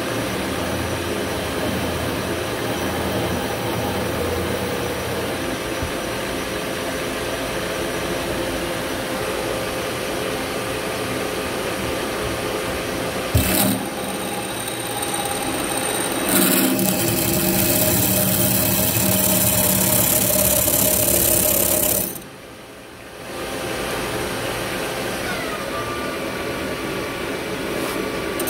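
Hafco AL-356V metal lathe running with its chuck spinning, a drill in the tailstock cutting into the turning workpiece. It changes sharply with a click about halfway through, then grows louder and hissier as the drill bores in, and drops away for about a second before picking up again near the end.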